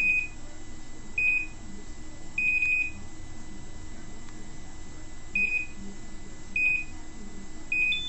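Electronic beeper on an Arduino combination lock giving six high single beeps at one pitch, about a second apart, each marking a turn of the hard-drive spindle motor knob counted by the lock; the third beep is held longer than the rest.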